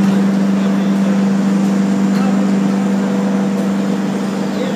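Wood CNC perforating machine running with a loud, steady hum.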